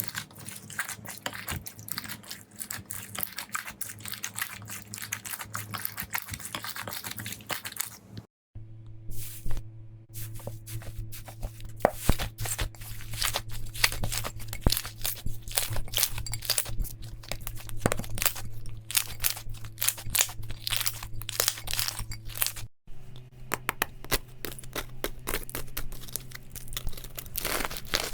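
Slime being squeezed, stretched and poked by hand, giving dense crackling and popping clicks, in three clips with a brief silent cut between each.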